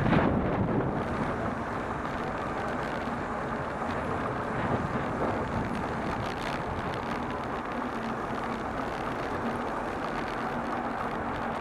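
City road traffic heard from a moving bicycle: car engines and tyres in the lane alongside, a steady rush of noise that is a little louder at the start as a car passes close.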